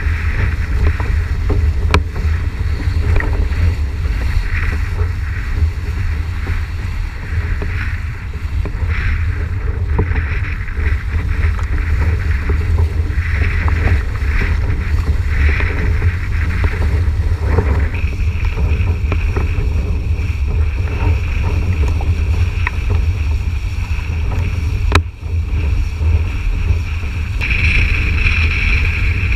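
Wind buffeting a boom-mounted action-camera microphone and water rushing and spraying under a windsurf board planing over chop. A thin steady whine joins in over the second half and grows louder near the end.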